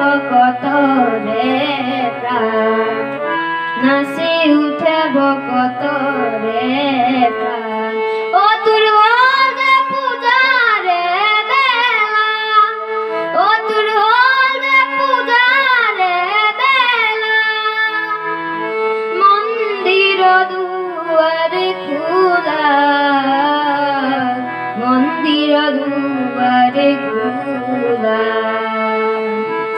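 A boy singing an Assamese song into a microphone over instrumental backing music, his held notes bending and wavering.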